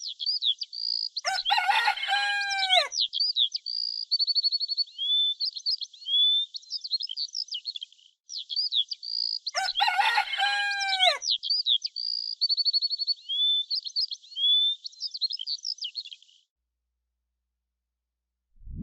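A rooster crowing twice, about eight seconds apart, over steady high chirping and trilling of small songbirds. The same crow-and-birdsong passage plays a second time, and all of it stops about two seconds before the end.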